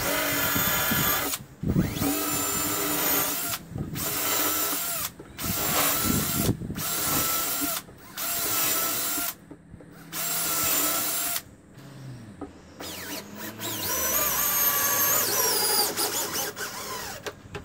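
Cordless drill boring into the hardwood end of a workbench, run in repeated short bursts with brief stops between them. Its motor whine rises and falls as the trigger is squeezed and eased. Near the end there is a longer run of about three seconds.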